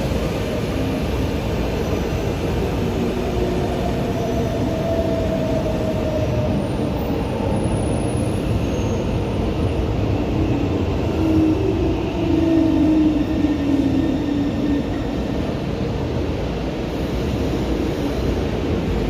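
São Paulo Metro Line 3-Red train 218 pulling into a station and braking: steady running noise under a traction motor and inverter whine that falls in pitch as it slows, loudest a little past the middle.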